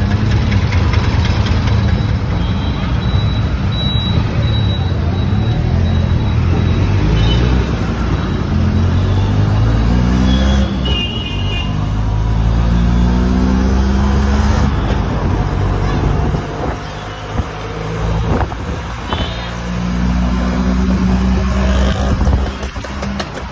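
Auto-rickshaw's small engine running under way, heard from the passenger seat, its pitch climbing and falling again and again as it speeds up and slows in traffic. A short high beep sounds near the middle.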